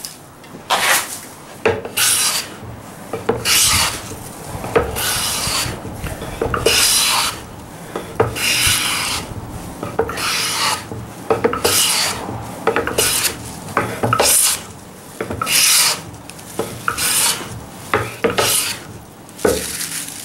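Japanese hand plane (kanna) taking repeated strokes along a wooden board, each pass a short scraping swish as the blade lifts a shaving, about one stroke a second.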